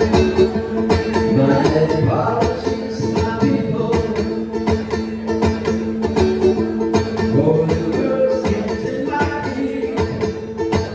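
Live band playing an alt-country song: banjo picking over guitar and drums with a steady beat, under a held droning note.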